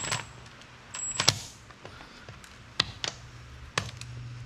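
Short whirs of a cordless power tool spinning out differential cover bolts, mixed with sharp metallic clicks and clinks as the tool and bolts are handled, over a low steady hum.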